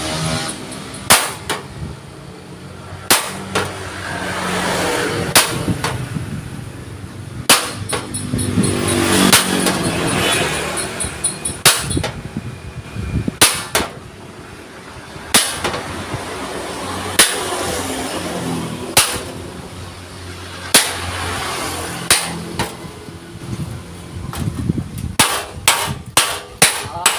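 A hammer striking thick steel plate, shaping it by hand: single sharp clanging blows every second or two that come quicker and closer together near the end. Between the blows there is the rise and fall of a passing motor vehicle.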